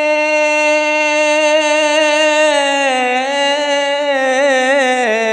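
A man singing a long held note unaccompanied in a devotional manqabat, drawing out the last word of the line; the pitch steps down twice in the second half and the note wavers in a wide vibrato over the last two seconds.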